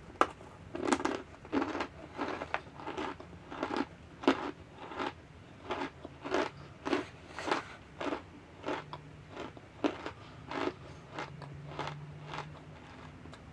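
Raw cornstarch chunks being chewed: a steady run of crisp crunches, about two a second, that stops a little before the end.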